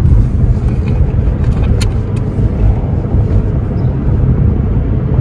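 Steady low rumble of a car driving, heard from inside the cabin, with a couple of brief clicks about two seconds in.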